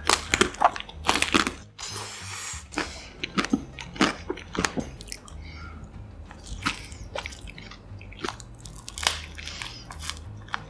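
Close-miked eating: crisp bites into chocolate-coated desserts, the hard chocolate shell cracking, then chewing. The bites are sharp and crackly, loudest and thickest in the first second and a half, then come as scattered single crunches.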